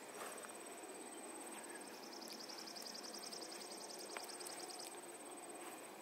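Faint insects trilling: a thin, steady, high-pitched trill throughout, joined for about three seconds in the middle by a second, slightly lower trill pulsing about nine or ten times a second, over a faint outdoor background hiss.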